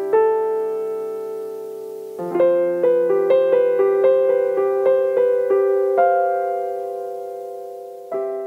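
Gentle solo piano music. A held chord rings, then a slow run of single notes at about three a second, ending on a final chord near the end that fades away.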